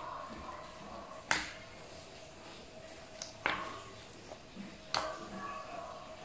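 Hands squeezing and poking a cloud cream slime made with instant snow, giving soft sticky crackles and four sharp pops over a faint steady hum.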